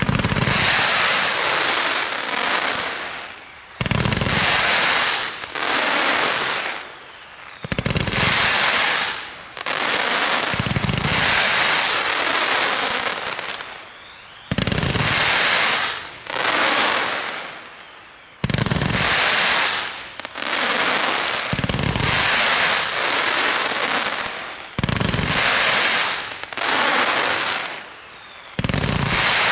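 A 30 mm, 130-shot crackling firework cake firing in volleys. Each volley opens with a sudden thump and is followed by a couple of seconds of dense crackling from the crackling stars, fading before the next. The volleys come about every three to four seconds.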